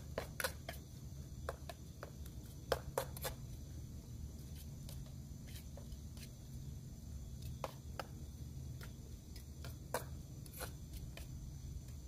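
Kitchen knife cutting greens inside a small stainless steel bowl, its blade clicking and knocking against the metal in irregular strokes, a cluster in the first second and another about three seconds in, then single clicks later on.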